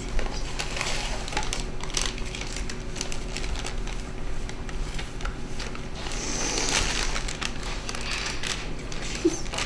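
Packet of dry brownie mix crinkling and crackling as the mix is tipped out into a mixing bowl, with a louder rush of pouring about two-thirds of the way through.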